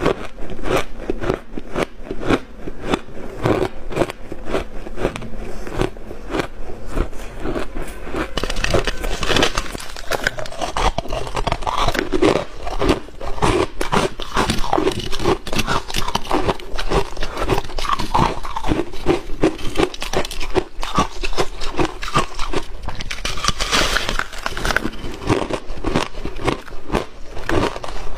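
Refrozen shaved ice crunching between the teeth in big bites: a dense, continuous run of sharp, crackling crunches as chunk after chunk is bitten off and chewed.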